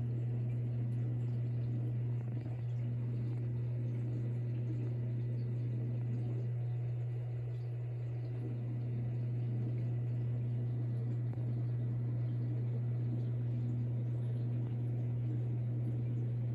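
Steady low electrical hum from running aquarium equipment.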